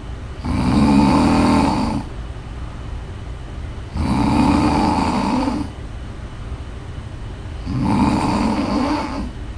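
A woman snoring: three loud snores about every four seconds, each lasting about a second and a half, with quieter breaths between them.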